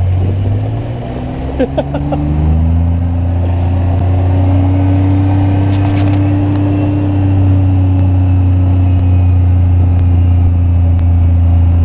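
Kawasaki Mule UTV engine picking up speed over the first couple of seconds, then running steadily at a constant pace.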